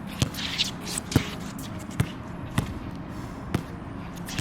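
A basketball being dribbled on a hard outdoor court, about five bounces at an uneven pace, roughly one a second.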